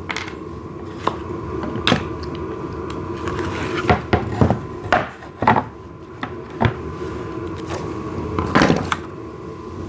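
Wooden table parts knocking and clattering as they are handled and set down: a scattering of short, sharp knocks over a steady background hum.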